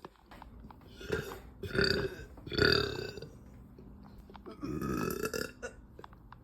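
A woman belching repeatedly, her stomach full of gas from carbonated soda: a run of pitched burps, the loudest about three seconds in, then a longer one later on.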